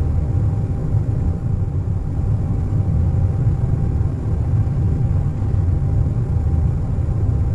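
Airliner cabin noise at cruise: a steady, even low rumble with a faint steady hum above it, unchanging throughout.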